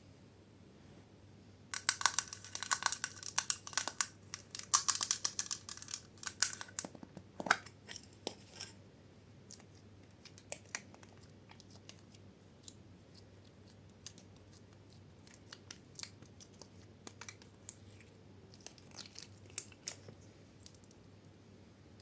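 Slime being worked by hand, giving a dense run of crisp crackling clicks and pops for several seconds, then only scattered single pops.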